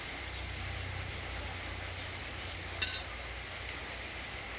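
A steady low hum under a faint hiss, with one sharp clink of a metal spoon against a plate a little under three seconds in.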